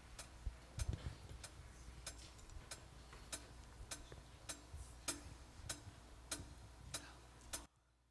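Faint, steady ticking of a metronome click, about one tick every half second or so, over a low hum; both cut off abruptly near the end.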